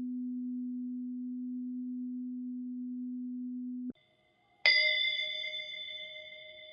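A low, steady bell tone hums on, fading only slightly, and cuts off abruptly about four seconds in. After a short silence a small bell is struck once, ringing bright and high and dying away over about two seconds.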